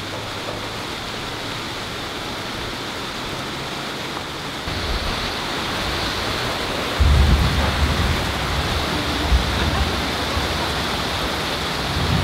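Heavy tropical rain pouring down in a dense, steady hiss. From about seven seconds in, a louder low rumble joins it.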